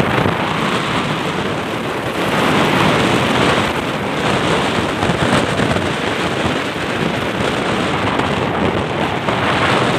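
Loud, steady wind rush buffeting the phone's microphone on a moving motorcycle, mixed with road noise from the ride.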